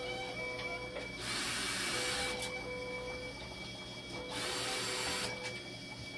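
Fresenius 2008K2 hemodialysis machine running through its cycle: two hissing rushes about three seconds apart, over a steady hum and short repeating tones.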